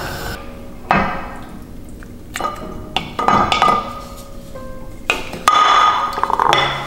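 Cubed tofu being pushed from a glass bowl into a saucepan of soup with a wooden spoon: a run of knocks and clinks, the glass ringing briefly, with the longest and loudest clatter near the end.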